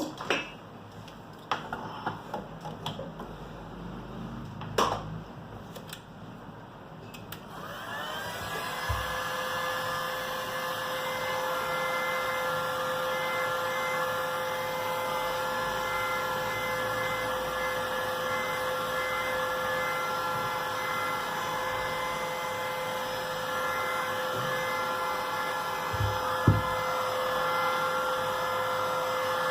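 A few sharp clicks and taps, then about seven seconds in a small electric blower-type motor starts and runs with a steady whine.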